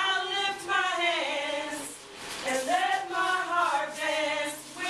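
Women's voices singing a worship song together, with long held notes that slide up and down.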